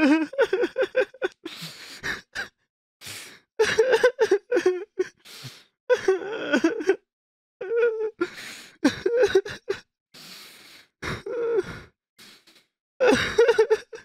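A person crying: broken, wavering sobs cut into short bursts, with sharp gasping in-breaths between them.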